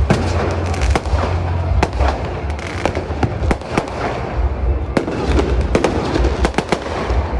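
New Year fireworks going off in quick succession: many sharp bangs and pops, several a second, over a continuous crackling haze and a low rumble.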